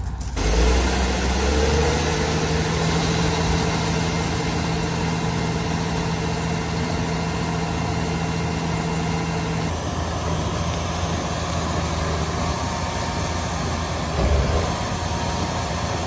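Case IH tractor engine running steadily under load, powering a Brent grain cart's unloading auger as soybeans are unloaded into a semi trailer. The engine note changes about ten seconds in, with a brief low surge near the end.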